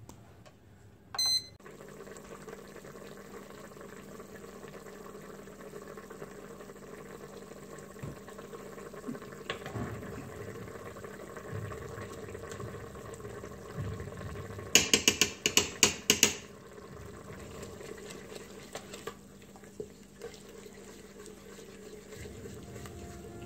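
An electric multicooker beeps once, then the braising liquid in its pot simmers steadily over a low hum while a wooden spoon stirs it. About fifteen seconds in comes a quick run of six or so sharp knocks.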